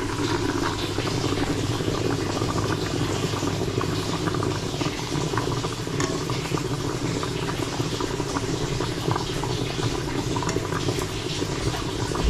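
Water boiling in the bottom of an open pressure cooker used as a steamer: a steady bubbling with many small ticks.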